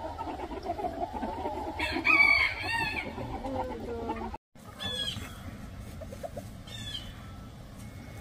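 Chickens clucking, with a rooster crowing once about two seconds in, the loudest sound. After a brief break in the sound, two short high calls over quieter background clucking.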